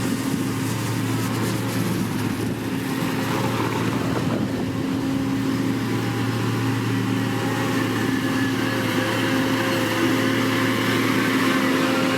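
Diesel engine of heavy road-building machinery running steadily with an even, constant hum.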